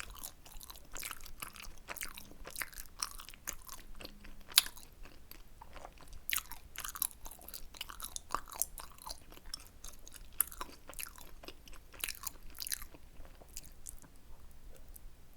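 Close-miked mouth sounds of someone eating tteokbokki: chewing and biting heard as a dense, irregular run of sharp clicks, several a second, with one louder click a little over four seconds in.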